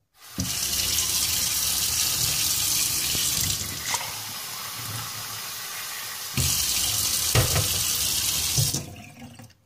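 Single-lever kitchen tap turned on, with water running steadily into a stainless steel sink. The sound softens for a few seconds in the middle while a glass is held under the stream, then the tap is shut off near the end.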